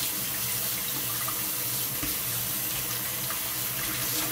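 Kitchen tap running steadily into a glass bowl of water in a stainless-steel sink, with hands kneading and squeezing wheat dough in the water to wash the starch out of it for seitan.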